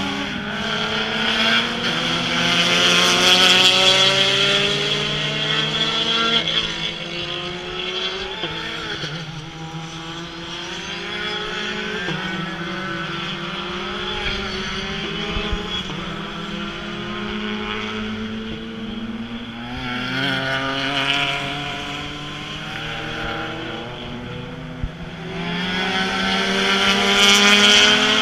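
Race car engines rising and falling in pitch through gear changes and throttle lifts as several cars go by on track. The loudest passes come about three seconds in, around twenty seconds in, and again near the end.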